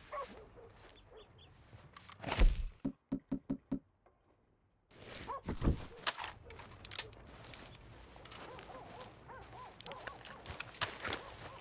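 Handling noises from a revolver: a heavy thunk, then five quick, evenly spaced clicks, a short pause, another knock, and a long run of small clicks and knocks.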